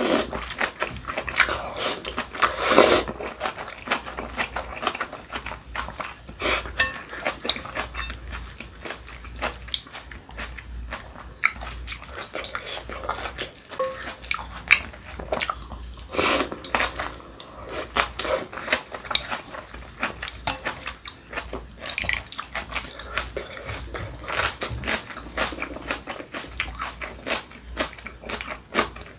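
Close-miked eating: wet slurping of thin wheat noodles in broth, with moist chewing and lip smacks. There are two louder, longer slurps, about three seconds in and a little past halfway.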